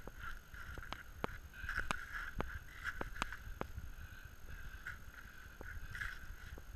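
Skis sliding and scraping over packed snow, a rough steady rumble and hiss, with a run of sharp clicks in the first few seconds and fewer after.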